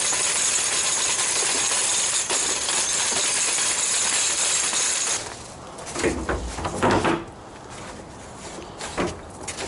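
Folding metal cart rolling over pavement: a steady, loud rush of wheel and frame rattle that stops about five seconds in. Then a few knocks and clatters at a plastic recycling bin.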